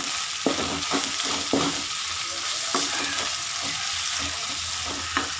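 Onions and ginger-garlic paste sizzling in hot oil in a kadai, with a spoon stirring and scraping against the pan a few times.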